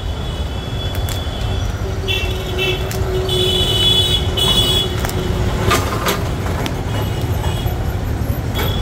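Steady rumble of road traffic, with a few sharp clicks and some thin high-pitched tones that come and go.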